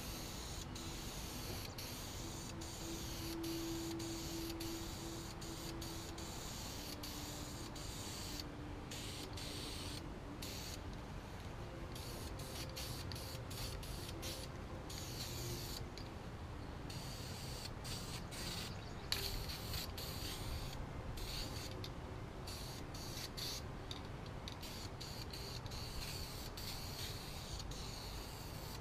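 Aerosol rattle can of wrinkle paint spraying in long hissing passes, broken by many brief pauses between strokes, as a heavy coat is laid on.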